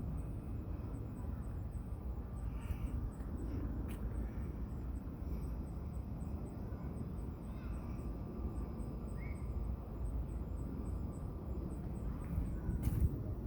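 Outdoor ambience: a steady low rumble with a faint high chirping repeating about three times a second and a few short bird-like chirps, plus a couple of sharp clicks, one about four seconds in and one near the end.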